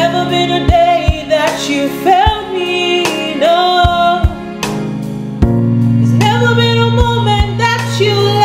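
Woman singing a slow gospel worship song, the line "There's never been a day that you failed me", over an instrumental backing with sustained low chords and drum beats.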